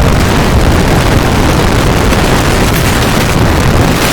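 A very loud, steady roar of distorted noise, the microphone overloaded by it.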